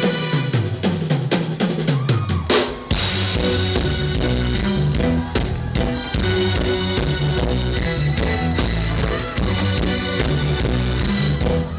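Live band: a drum fill runs around the toms for the first few seconds, then a cymbal crash brings the full band back in, with bass and drums playing a steady groove.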